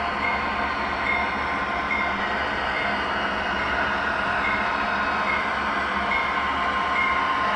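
Model railroad diesel locomotive pulling a freight train, a steady running drone with a short ringing note repeating about every 0.8 seconds, like a bell.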